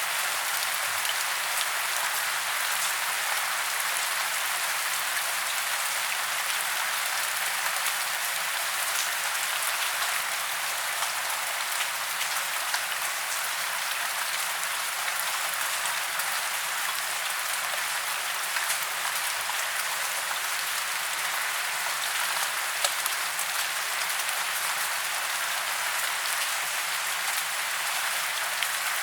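Steady rain falling on tree branches and leaves in woodland: a dense, even hiss with little low rumble, dotted with scattered sharp drop ticks.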